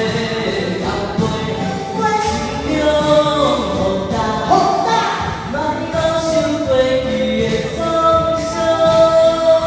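A solo singer singing a slow song over backing music, holding long notes.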